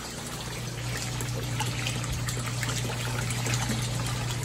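Water pouring into a fish tank of an IBC-tote aquaponics system, splashing and trickling on the surface, over a steady low hum.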